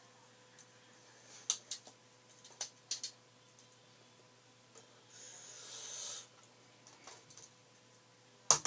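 Hard plastic toy pieces being handled: a few sharp clicks and taps, then a single louder sharp click near the end. A soft rushing sound, like a breath, comes about five seconds in.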